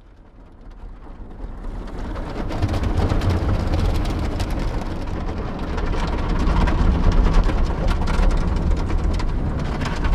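Steady low rumble of a car on the move, fading in over the first couple of seconds, with a dense crackling patter of rain over it.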